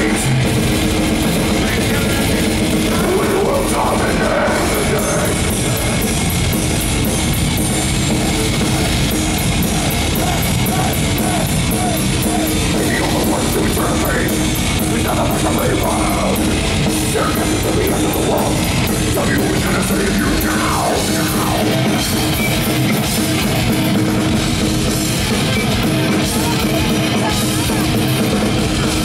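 Death metal band playing live at full volume: distorted electric guitars and bass over a drum kit, steady and dense throughout.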